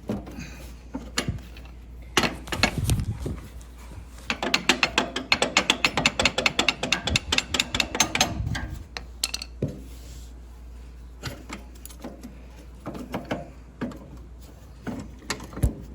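Metal clicking and knocking as the stuck front hanger of a Murray riding mower's deck is worked and tapped loose from the axle support: scattered knocks, then a rapid run of clicks, several a second, for about four seconds from about four seconds in.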